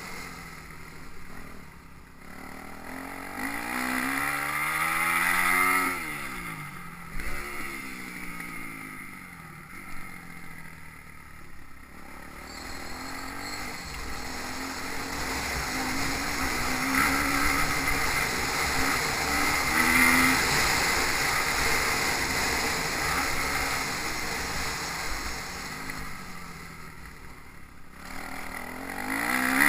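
Motocross bikes' engines revving up and down as they ride past, with the pitch climbing and dropping through the gears. At times two bikes overlap. The bikes are loudest about five seconds in and again near twenty seconds. Wind rumbles on the microphone underneath.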